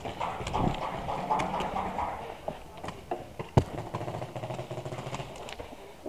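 Movement noise on a head-mounted camera: scuffing steps on dirt and gear rustling, with scattered small knocks and one sharp crack a little past halfway.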